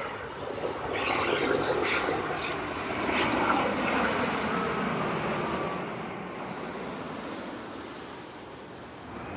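A landing airliner passing close by. Its engine and rushing-air noise swells about a second in, is loudest over the next few seconds, then fades away as it goes past.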